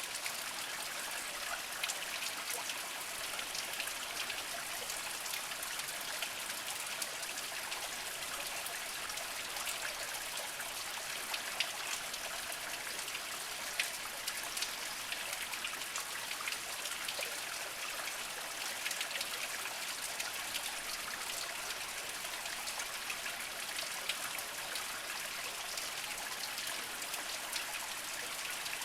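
Small spring water trickling and dribbling steadily over mossy rocks, a constant light splashing with many tiny drips and plinks.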